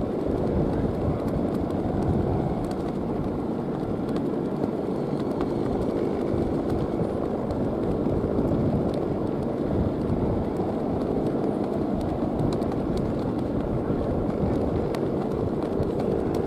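Steady wind rush over the microphone with a faint, even low hum underneath.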